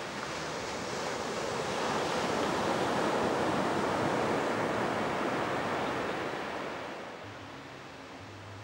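Ocean surf: waves breaking and washing onto a sandy beach as a steady rushing noise that swells a couple of seconds in and eases off near the end.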